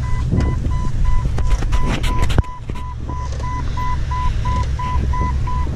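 An electronic beep repeating about three times a second over the low rumble and rattle of an off-road vehicle crawling a rough dirt trail, with a few sharp knocks about two seconds in.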